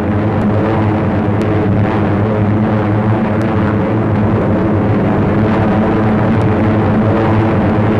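Steady, loud drone of many propeller aircraft engines flying in formation, on an old film soundtrack with faint crackle ticks.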